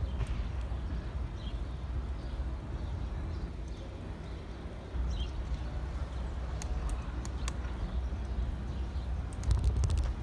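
Wind buffeting the microphone and a bicycle rolling along a paved path: a steady low rumble that grows a little louder about halfway through and peaks near the end. Scattered sharp clicks and rattles from the bike, with a quick cluster of them near the end.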